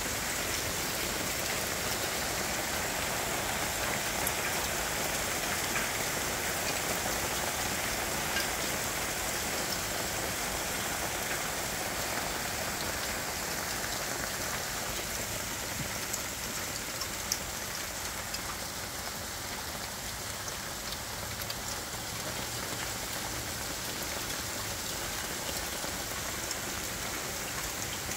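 Hail falling steadily: a dense, even hiss with scattered sharp ticks of stones striking hard surfaces, easing slightly about halfway through.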